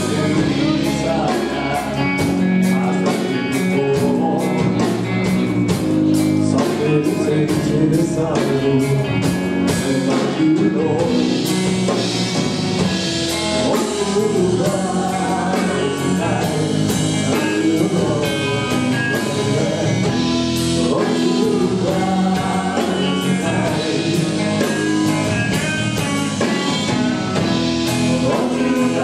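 Live rock band playing: distorted electric guitars, bass and drum kit, with a male singer's voice over them. For the first ten seconds or so a cymbal ticks out a steady beat, then the drumming changes.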